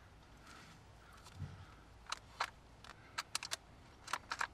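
A soft low thump about a second and a half in, then a quick, irregular run of sharp small clicks and ticks, like gear being handled close to the microphone.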